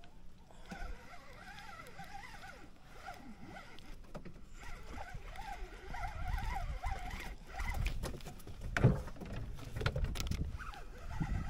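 Fishing reel being cranked, a wavering whirr that speeds up and slows with the winding. In the second half a low rumble of wind and water on the boat grows, with a sharp knock about nine seconds in.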